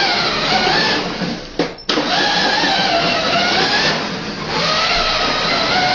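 Electric motor of a battery-powered ride-on kids' vehicle whining under power, its pitch wavering as the speed changes. It cuts out briefly about a second and a half in, then picks up again and dips once more around four seconds.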